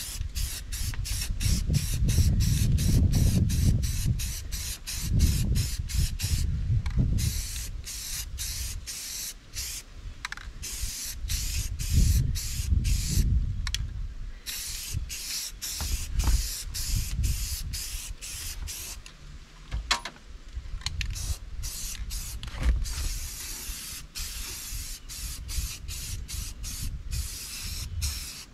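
Aerosol spray-paint can hissing in a long run of short bursts, the nozzle pressed and released again and again with brief breaks between. A low rumble swells and fades underneath.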